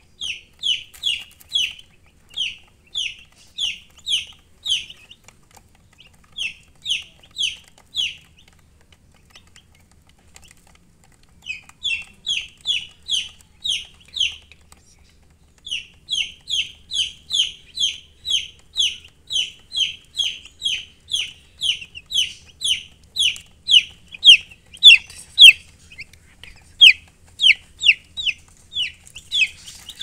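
Domestic chicks peeping: rapid, high cheeps that each fall in pitch, about three a second, in bouts with a pause of a few seconds partway through and the loudest calls near the end.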